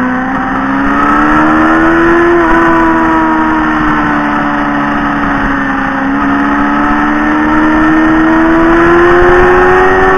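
Motorcycle engine running at road speed as heard from on board, its note climbing for the first couple of seconds, easing off, then climbing again near the end as the throttle is worked through the bends, over a steady rush of wind noise.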